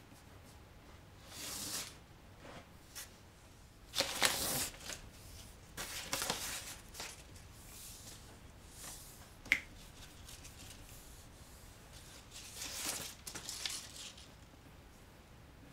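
Black adhesive tape being pulled and pressed by hand along the edge of a board, heard as several short peeling and rubbing rustles, with one sharp click a little past halfway.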